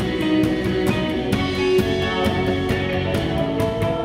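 Live rock band playing an instrumental passage: guitar over a drum kit keeping a steady beat of drum and cymbal hits.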